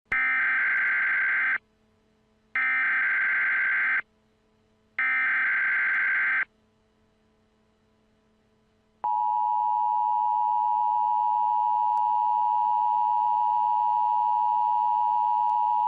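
Emergency Alert System broadcast tones: three identical bursts of the SAME digital header, each about a second and a half long with roughly a second between them. After a pause the steady two-tone EAS attention signal begins about nine seconds in and holds.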